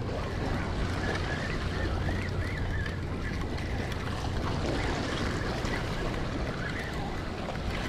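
Wind buffeting the microphone over a steady wash of small waves against shoreline rocks.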